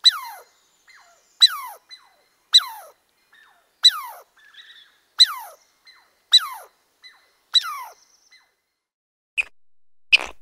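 A high animal call that slides quickly down in pitch, repeated seven times about every 1.2 s, with fainter short chirps between. Near the end come two short, squeaky clicks.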